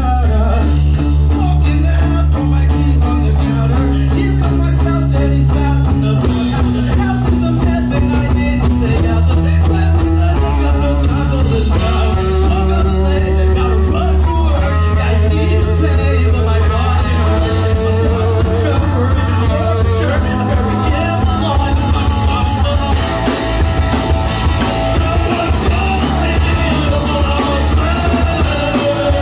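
Live rock band playing loudly, with a drum kit and a heavy, sustained bass line under melodic guitar or vocal lines.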